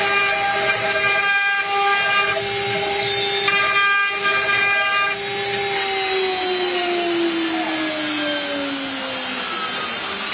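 CNC router spindle and cutter running on PVC: a steady whine over a high hiss, with some of its higher tones cutting in and out during the first five seconds. About five seconds in the whine starts falling steadily in pitch, as the spindle slows down.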